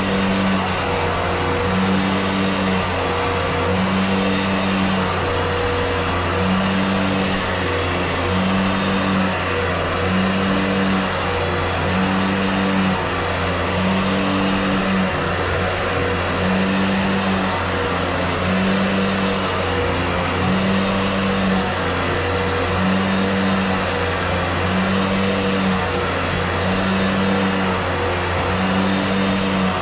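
Motor of drain-cleaning equipment running steadily, its hum pulsing on and off about every second and a half.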